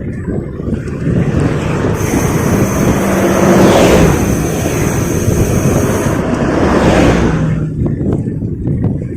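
A motor vehicle passes close by during a bicycle ride, swelling to its loudest about four seconds in and fading after about six seconds, over steady wind on the microphone and tyre rumble.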